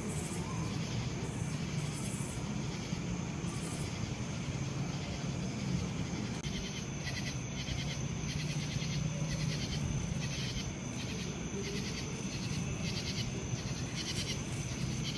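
Night insects chirping in an even rhythm, about two pulses a second, together with a steady high trill, the chirping growing plain about halfway through, over a steady low hum.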